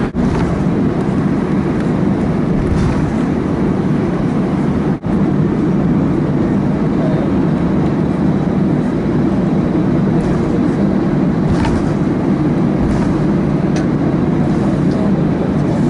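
Steady cabin rumble of an Airbus A320 rolling along the taxiway after landing, its jet engines at idle, heard from inside the passenger cabin. A few faint ticks sound over it in the second half.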